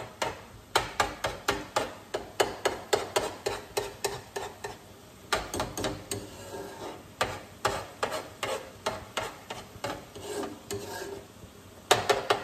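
Metal tongs clicking and scraping against a skillet as egg, shrimp and vegetables are stirred. The clicks come in a quick run of about three or four a second, pause briefly midway, and finish in a louder cluster near the end.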